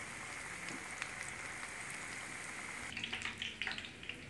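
Battered potato pakoras deep-frying in hot oil, a steady sizzle. A run of sharp crackles and clicks begins about three seconds in.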